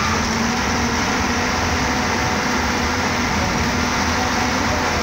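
Engine and road noise of a ZUPCO passenger bus under way, heard from inside the cabin: a steady, even drone with a faint low hum.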